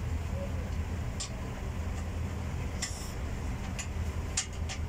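A wrench clicking and clinking against the nut on the top mount of a truck's air spring, about five sharp metallic clicks spread out over a steady low hum.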